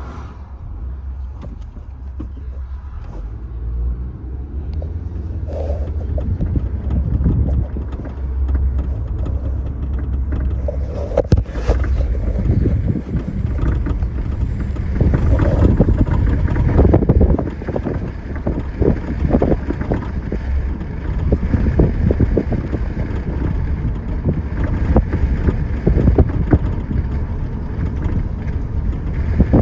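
A 2011 Audi A5 Quattro on the move, with a steady low rumble and many short clicks and knocks from the rear passenger-side suspension, growing busier from about six seconds in. The owner thinks the clicking may come from the upper shock mount or the sway bar.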